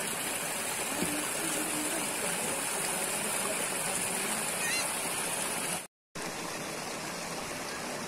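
Steady rush of a hillside stream, with a high-pitched hiss over it that stops at a brief dropout about six seconds in.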